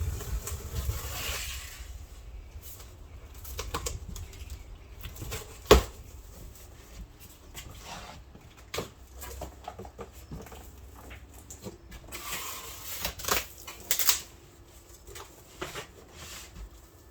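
A cardboard box and its packing being opened and handled: rustling and scraping, with scattered clicks and knocks and one sharp knock about six seconds in.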